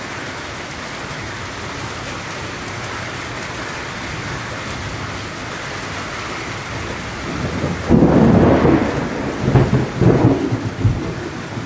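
Steady rain falling on trees and the roof, then thunder rumbling in about two-thirds of the way through, swelling twice before it dies away.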